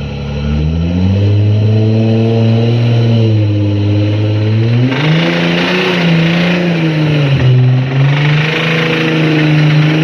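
Nissan 300ZX's twin-turbo VG30DETT V6 revved hard and held at high revs, climbing further about halfway, with a noisier hiss layered over it in the second half. The engine has a bad rod knock.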